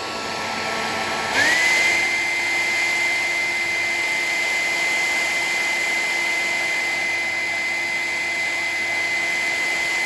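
Handheld hair dryer blowing steadily. About a second in it is switched up to a higher setting: the airflow gets louder and the motor whine jumps up in pitch, then holds steady.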